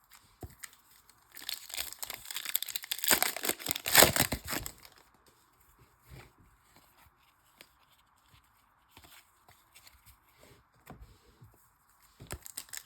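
A trading-card pack's wrapper being torn open, loudest a few seconds in, followed by faint rustles and light clicks of cards being handled.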